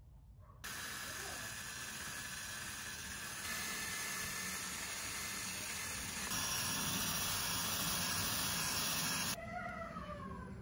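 A DeWalt 18V brushless cordless combi drill spins a steel wire cup brush against a rusty steel EZ curl bar, stripping the rust with a steady, harsh, hissing scrub. It starts about a second in, grows louder in two steps, and cuts off about nine seconds in.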